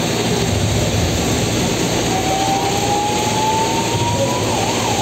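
Loud, steady din of engines and street noise, with a siren tone rising slowly from about two seconds in and switching to a fast up-and-down warble near the end.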